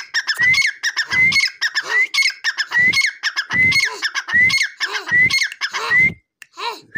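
Dakhni teetar partridge calling: a harsh call repeated about once every 0.8 seconds, each with a sharp rising note, eight or so in a row, stopping about six seconds in.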